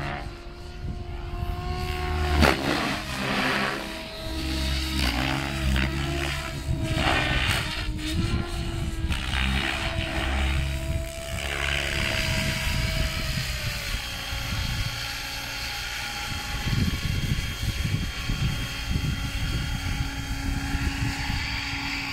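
Electric flybarless 3D RC helicopter (ALZRC N-Fury T7) in flight: the rotor blades whoosh in loud surges while the motor's whine glides up and down through hard manoeuvres, then it settles to a steadier whine for the last ten seconds as it comes down to land.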